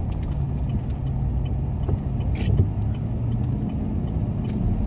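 Car driving on a wet road, heard from inside the cabin: a steady low engine and tyre rumble, with two brief hisses, one midway and one near the end.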